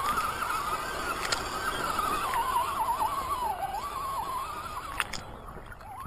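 Electric motor and gear whine of an Axial SCX10 RC scale crawler, wavering up and down in pitch with the throttle as it climbs, with a few sharp clicks. The whine stops about five seconds in.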